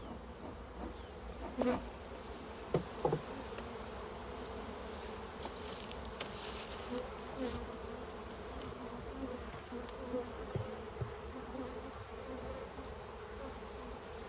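Honey bees buzzing in a steady hum around an opened hive as its frames are lifted out. A few short knocks come about two to three seconds in.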